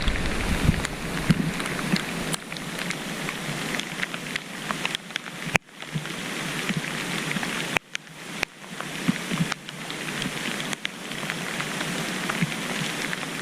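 Rain falling steadily, with many small irregular drop ticks close by; the sound drops out briefly twice.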